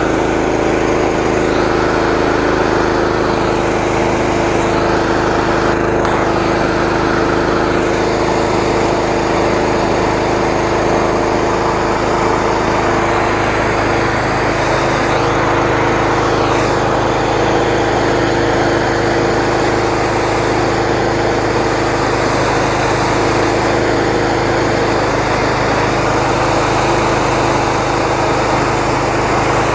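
A 13-horsepower engine driving a high-pressure sewer-jetting pump, running steadily under load at about 250 bar while the wash gun sprays, with a broad hiss over the steady engine note.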